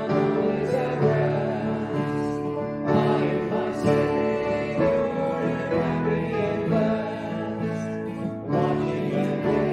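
Congregation singing a hymn with acoustic guitar accompaniment, in slow held notes.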